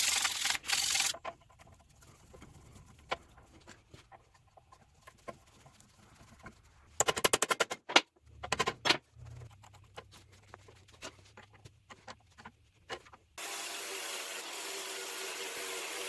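Scattered clicks and knocks of hand work on a benchtop drill press, with a quick rattling run of clicks about seven seconds in and a few heavier knocks just after. Near the end a steady whirring hum starts.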